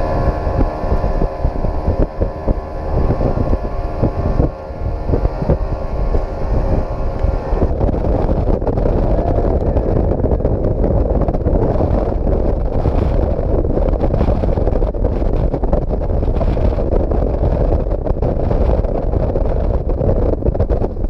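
Mercury outboard motor running steadily at speed, with wind buffeting the microphone and water rushing past the hull. About eight seconds in, the engine's steady tone drops out under a dense rush of wind and spray.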